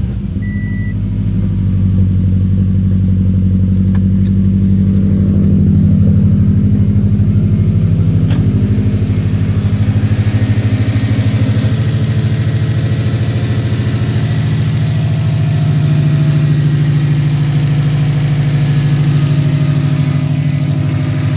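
2006 Subaru WRX's turbocharged 2.5-litre flat-four engine idling steadily with a newly replaced PCV valve, running a lot smoother. A few short electronic beeps sound at the very start.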